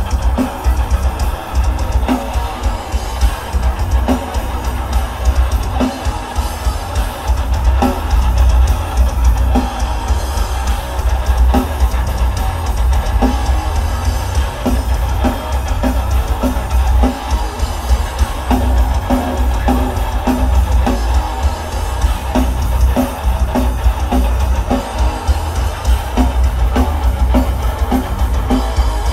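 Heavy metal band playing live: distorted electric guitars and bass guitar over a drum kit with pounding bass drum and regular snare hits.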